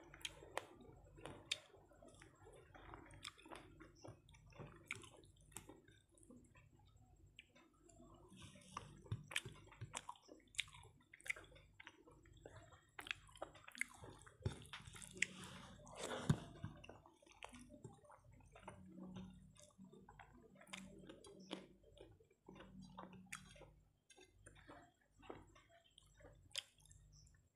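Eating sounds: chewing and lip smacks, with soft wet squishes of rice being mixed by hand on a plate, in an irregular run of small clicks, one louder smack a little past the middle.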